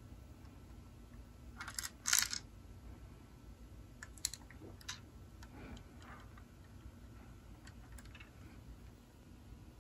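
Faint handling noise: plastic clicks and rattles from a Lego garbage truck model as it is turned in the hand, the loudest short cluster about two seconds in, then a few scattered single clicks.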